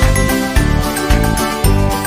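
Background music: a cheerful tune with a steady beat, about two beats a second, and bright high notes on top.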